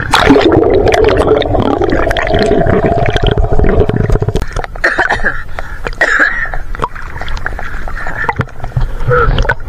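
Sea water sloshing and splashing over a camera at the wave surface as it dips under and comes back up, the sound turning muffled and gurgling while it is underwater.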